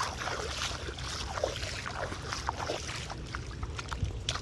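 Small irregular splashes and trickles of shallow water, as from footsteps wading through floodwater, over a steady low rumble.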